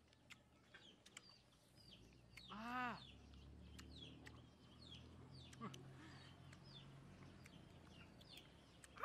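Chickens in a yard: a hen gives one loud clucking call about two and a half seconds in, over scattered short, high, falling chirps.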